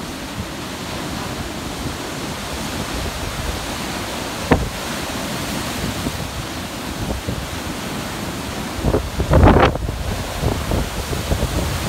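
Heavy storm-driven surf breaking and washing up the beach, with strong wind buffeting the microphone in rumbling gusts. A short pop comes about four and a half seconds in, and the hardest gust hits about nine and a half seconds in.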